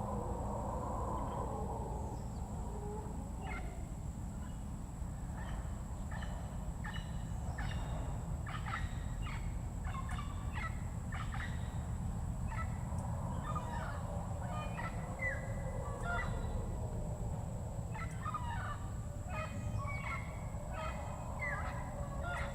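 Rainforest birds give raucous chattering calls in quick repeated clusters, starting a few seconds in and coming and going. Under them run a steady low rumble and a faint steady high whine.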